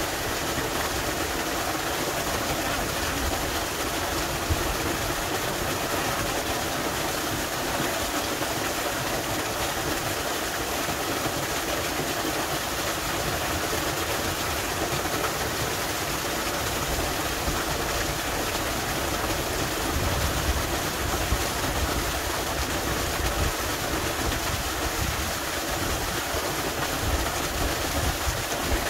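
Steady rushing and splashing of a small waterfall pouring down a rock face, an even noise without breaks.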